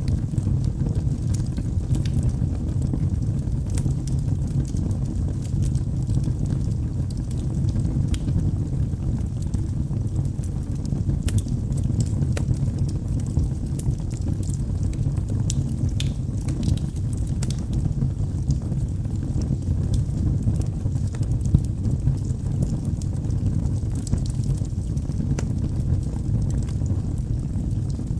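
Wood fire burning in a fireplace: logs crackling with scattered irregular pops and snaps over a steady low rumble of flames.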